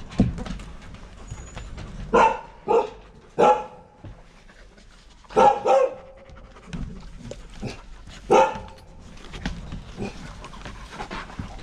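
Six short barks from a canine, in bunches of three, then two, then one.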